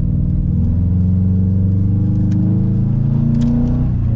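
Subaru WRX's turbocharged flat-four engine pulling the car along, its note climbing slowly, then easing down near the end.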